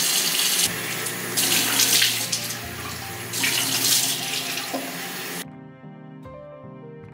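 Tap running into a bathroom sink, with splashing as hands scoop water onto the face to rinse it. The water stops sharply about five seconds in.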